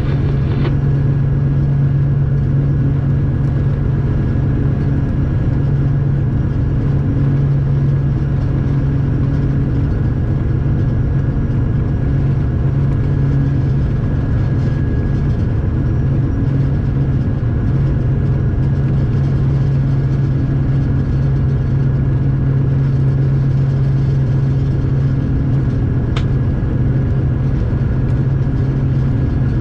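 Class 311D "Batman" diesel-electric locomotive's engine running steadily, heard inside the driver's cab as a loud, even low hum.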